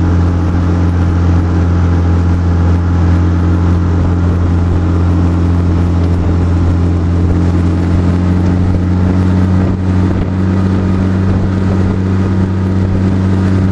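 A small boat's motor running steadily under way, a loud, even low drone with water and wind noise over it.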